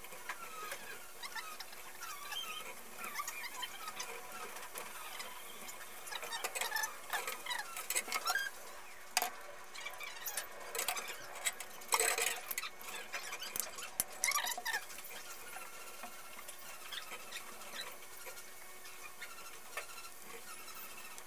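Hands working wire splices and tape at an overhead junction box: rustling, clicks and crackles, with scattered short high squeaks and chirps, busiest in the middle.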